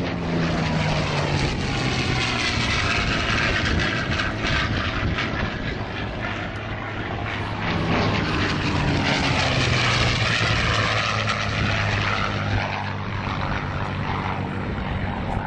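WWII piston-engine propeller aircraft flying past low, the engine note swelling and dropping in pitch as it goes by. A second loud pass swells up about eight seconds in.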